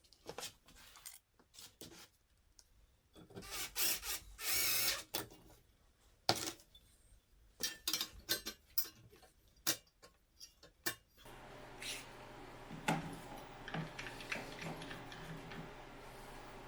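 Hand work with tools: scattered clicks and knocks, with a louder scraping or rubbing about four to five seconds in. A steady hum comes in about eleven seconds in.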